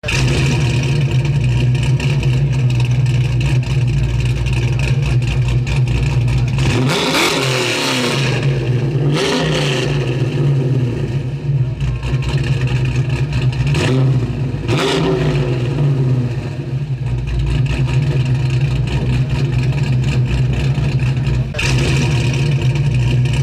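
A car engine running at a steady rumbling idle, revved up and back down a few times.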